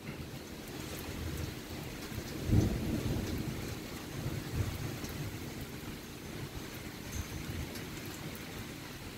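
Thunder rolling over steady rain: a low rumble swells about two and a half seconds in and dies away in weaker rolls.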